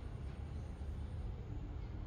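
Steady low rumble of outdoor background noise, with no distinct sound events.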